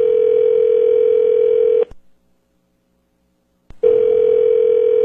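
Telephone ringback tone heard on the calling line: a steady tone sounds for about two seconds, stops for two, then starts again, meaning the other phone is ringing and has not yet been answered.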